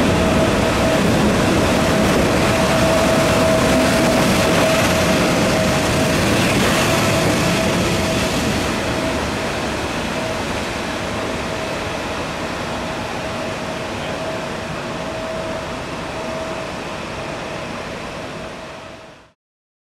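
Swiss Be 6/8 'Crocodile' electric locomotive running along the track with a steady rumble and a steady whine, slowly fading as it moves away, then cutting off just before the end.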